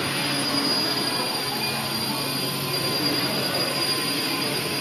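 RC helicopter flying low, its motor and spinning rotor blades running steadily with a high whine over a whooshing noise.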